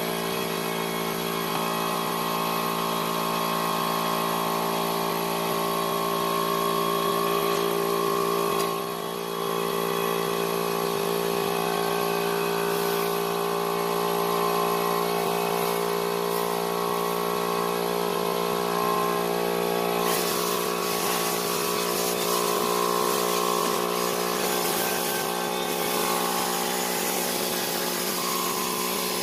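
Cordless drill spinning a scrub brush, a steady motor whine that dips briefly about nine seconds in. From about twenty seconds in a hiss of scrubbing joins it as the brush works the foamed rubber floor mat.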